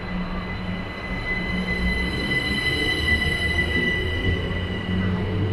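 Gatwick Express Class 387 electric multiple unit pulling out of the platform: a low rumble with a steady high whine over it, the whine fading about four and a half seconds in.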